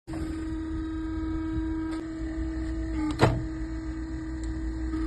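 Steady electric motor hum of tyre-shop machinery. A brief, loud sweeping squeal comes a little over three seconds in.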